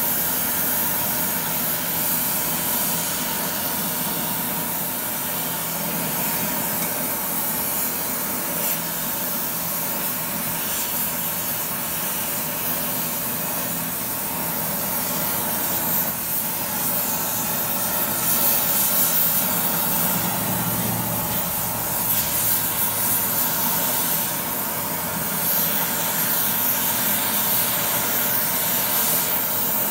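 Oxy-fuel torch flame hissing steadily as it heats a steel bar.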